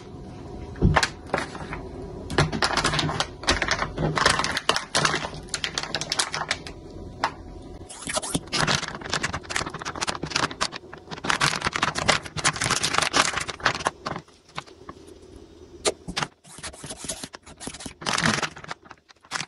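Zip-lock sous vide bag being handled and sealed: crinkling plastic and many rapid small clicks as the zipper is pressed shut with a slider clip.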